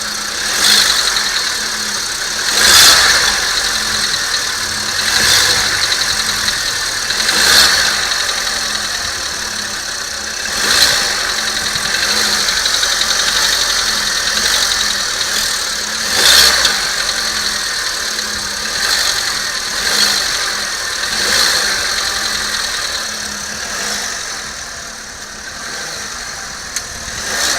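Volkswagen Polo Sedan engine idling, with the throttle blipped and released again and again so the revs rise briefly and fall back. The engine is being revved to find a knock in it.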